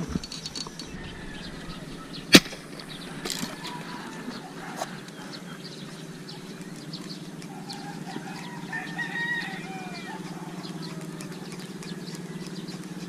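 A rooster crowing about eight to nine seconds in, over a steady low hum, with a single sharp click about two seconds in.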